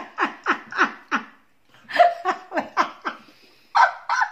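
A woman laughing hard in two bouts of quick ha-ha pulses, about a second each, with a pause between them and a couple of louder bursts near the end.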